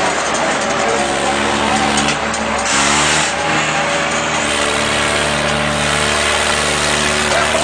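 Diesel engines of two farm tractors running hard at a steady high throttle under heavy load as they pull against each other in a tug of war, with a crowd shouting behind. About three seconds in there is a short, harsher rush of noise.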